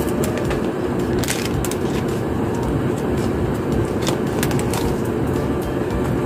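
Steady low rumbling background noise, with a few short, sharp crackles of plastic packaging as an antigen test kit's swab and pouch are unwrapped by hand.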